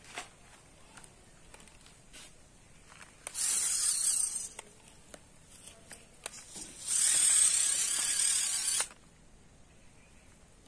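A homemade PVC clamping robot at work on a tree trunk: two bursts of hissing, scraping noise, the first about a second long and the second about two seconds, with light clicks in between.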